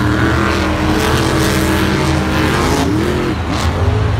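Monster truck's supercharged V8 engine revving. Its pitch holds fairly steady, then dips and climbs again about three seconds in.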